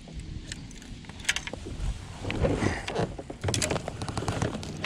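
Handling noise on a kayak-mounted camera: clicks, knocks and rubbing as gear moves against the camera and kayak, sparse at first and much busier from about two seconds in.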